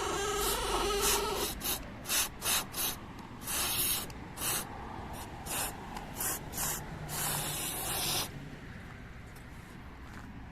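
Aerosol can of WD-40 sprayed in about a dozen short hissing bursts, the longest lasting about a second, into a Hyundai Sonata's power-folding side-mirror hinge to quiet its squeak. A short squeaky tone sounds in the first second and a half.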